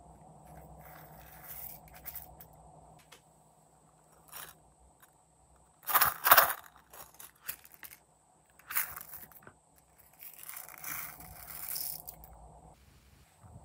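Hands squeezing and rubbing soft silicone containers, giving scattered scraping and rustling sounds. The loudest is a quick double scrape about six seconds in, and a longer rustle comes near the end.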